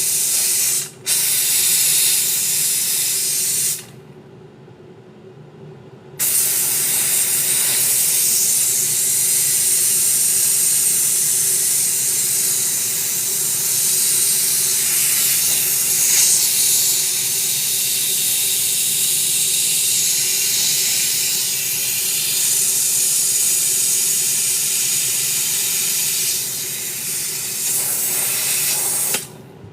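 A hand tool blowing a loud, steady hissing jet. It cuts out for a moment about a second in, stops for about two seconds around the four-second mark, then runs on until it shuts off near the end.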